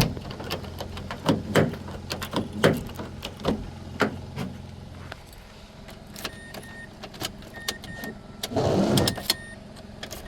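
Car sounds: a steady low engine hum that stops about five seconds in, with scattered clicks and knocks throughout. Short repeated electronic beeps follow in the second half.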